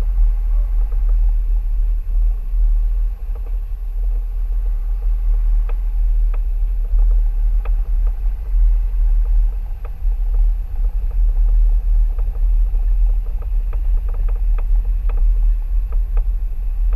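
Mercedes-Benz ML350 BlueTec SUV driving on a rough dirt track, heard from a camera mounted on its hood: a steady deep rumble, with scattered light clicks and knocks that come more often near the end.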